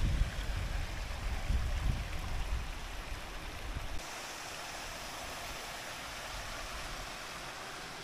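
Steady rushing of a rocky stream. For the first few seconds it is mixed with gusts of wind buffeting the microphone, then after a sudden cut about four seconds in, only the even rush of water remains.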